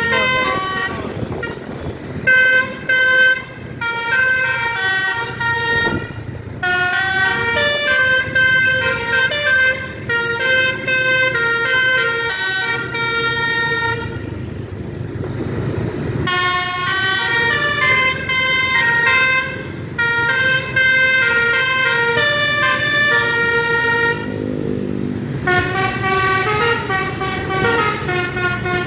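Basuri telolet horn on a bus playing quick melodic tunes, its tones jumping from note to note, with the bus engine running underneath. The horn stops for about two seconds midway, then plays on.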